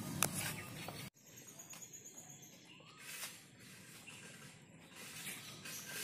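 Quiet outdoor ambience with faint high-pitched bird chirps and a few soft clicks. The background noise cuts off suddenly about a second in, leaving it quieter.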